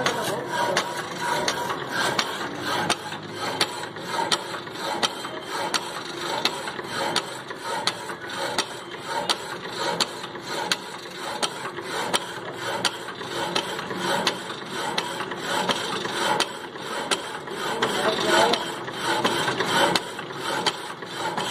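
Horizontal band saw running, its blade cutting through a solid metal round bar with a steady rasping grind and a regular ticking.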